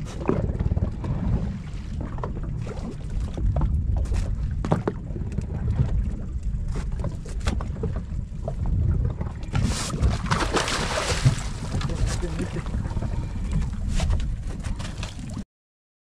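Wind buffeting the microphone on an open boat, with scattered knocks. About ten seconds in there is a burst of splashing as a hooked trevally is hauled to the surface on a handline. The sound cuts off suddenly near the end.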